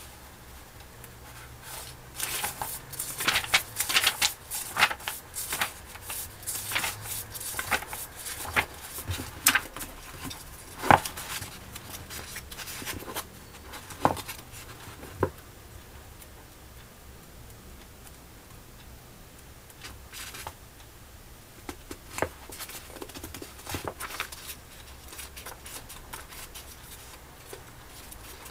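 Paperback book pages being turned and riffled by hand: quick paper flicks and rustles, dense for the first half, then sparser single page turns.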